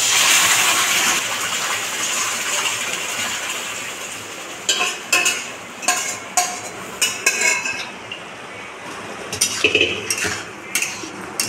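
Mashed aubergine, potato and tomato hitting hot oil in a kadhai: a loud sizzle at the start that dies down over a few seconds. A metal spatula then clinks and scrapes against the aluminium pot and the pan as the mash is scraped in and stirred, with a few more clinks near the end.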